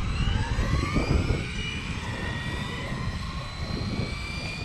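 The brushless electric motor and drivetrain of an HPI Maverick Quantum XT Flux 1/10 stadium truck whining as it accelerates hard on a 3S LiPo. The pitch rises over the first couple of seconds, then holds at a steady high whine at top speed.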